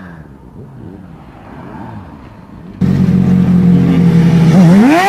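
Motorcycle engines heard from riding motorcycles. A fainter engine with wavering pitch is cut off abruptly about three seconds in by a louder, steady engine, which revs up with a sharp rise in pitch near the end.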